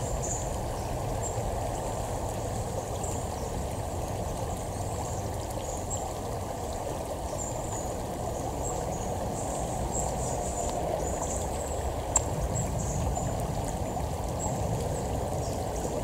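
Shallow creek water running and trickling over rocks, with faint high-pitched chirps of small birds scattered throughout and a brief click about twelve seconds in.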